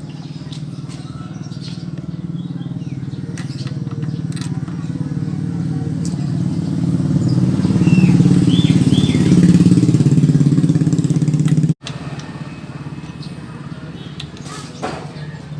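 A motorcycle engine running nearby, its low hum building louder over several seconds and then dropping away abruptly near the end, with a few light clicks through it.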